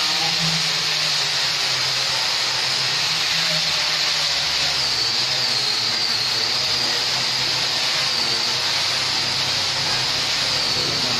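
Steady, loud hissing noise with a low hum beneath it, holding level without a break.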